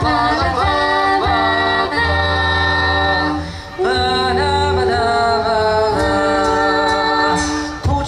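A cappella vocal group singing a military-song medley in close harmony, the voices holding chords over a low sung bass line. There is a brief break between phrases about three and a half seconds in.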